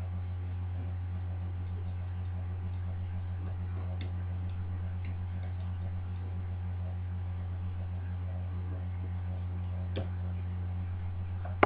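A lock pick tapping the levers inside a Union five-lever deadlock as it is picked: faint, scattered ticks a second or more apart. A steady low electrical hum is louder throughout.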